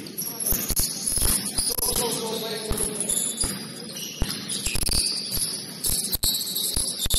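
Gym sounds during a basketball game: a basketball bouncing on the court in irregular thuds, with high-pitched sneaker squeaks and faint voices.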